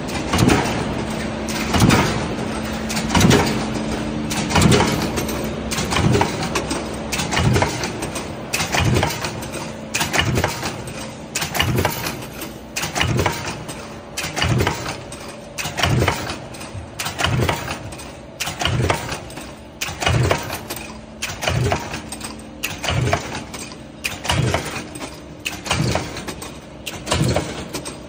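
Power press stamping hinge cups from steel strip in a hinge cup die, striking regularly about every one and a half seconds with lighter knocks in between, over a steady motor hum.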